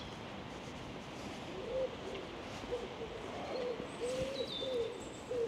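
Bird calls: a series of short, low, pitched notes starting about one and a half seconds in, with a few faint high chirps around four seconds in.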